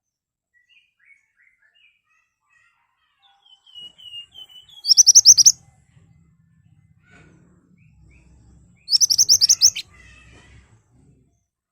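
Pied bushchat (mantenan) singing: soft, scattered twitters, then two short, loud bursts of rapid high-pitched notes about four seconds apart.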